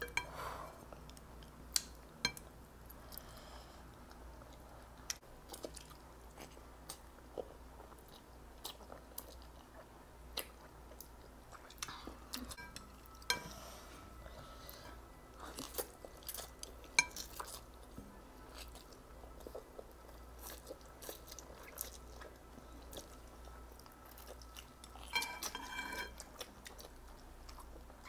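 Close-up chewing of instant noodles, with scattered light clicks and taps of chopsticks against a glass bowl.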